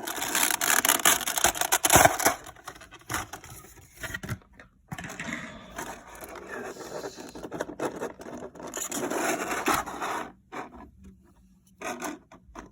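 Clear plastic packaging crinkling and scraping with sharp clicks as an action figure is worked out of its plastic tray. It is loudest in the first two seconds, comes back in uneven spells and gets quieter near the end.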